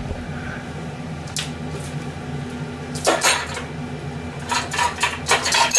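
Kitchenware being handled: a knock about a second and a half in, a few clicks about three seconds in, then a quick run of clinks and clatters near the end, over a steady low hum.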